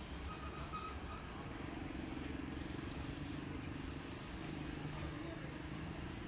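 Low rumble of distant motor traffic, with a vehicle engine's hum coming up for a few seconds in the middle.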